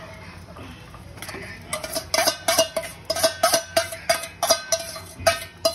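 A metal utensil beating eggs in a steel bowl for an omelette, clinking rapidly against the rim about four times a second, each strike with a short metallic ring. The beating starts a couple of seconds in.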